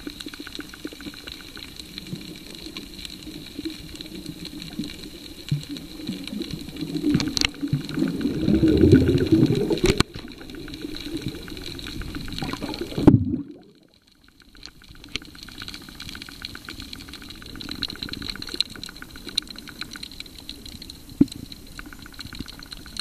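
Muffled underwater sound: water sloshing with a fast, steady crackle of tiny clicks and a faint high steady tone, and a louder low churning rumble about eight to ten seconds in. The sound drops out for about a second near the middle.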